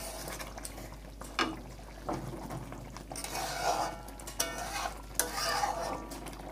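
A flat metal spatula stirring thick curry gravy in a metal kadai, scraping irregularly with a few sharp clinks against the pan.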